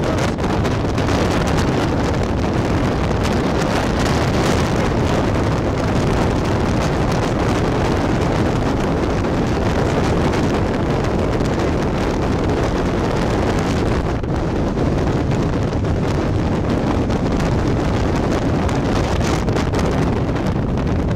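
Wind buffeting the camera microphone: a loud, steady rushing noise, heaviest in the low end.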